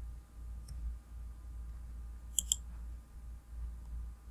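Computer mouse clicking: a faint click, then a quick double click about halfway through, over a steady low hum.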